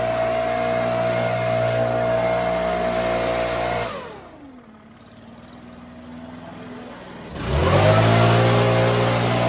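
Engine-powered leaf blower running at full throttle, let off about four seconds in so the engine winds down to a low idle, then throttled back up to full speed about three seconds later.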